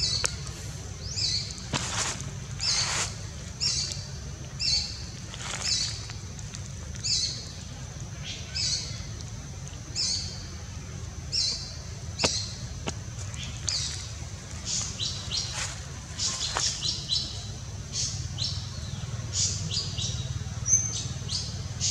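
A bird calling over and over: short, high chirps that sweep downward, about one a second, with a few quicker runs near the end. A steady low rumble lies underneath.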